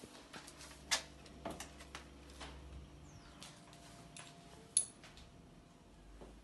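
Scattered soft clicks and knocks from a handheld phone being carried through small rooms, with a low rumble of handling. Two sharper clicks stand out, about a second in and just before five seconds.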